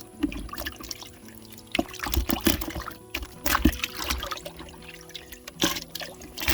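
Water splashing and trickling in irregular bursts about a second apart.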